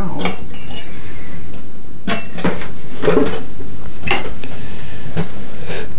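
Clinks, knocks and scrapes of metal engine parts and tools being handled while a 60cc Suzuki snowmobile engine is taken apart by hand, as a string of separate sharp taps about a second apart.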